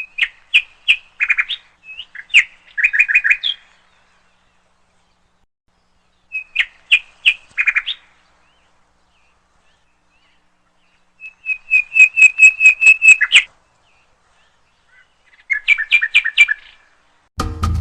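A bird calling in four bouts of rapid, sharp repeated notes, with silent pauses between the bouts. Music starts right at the end.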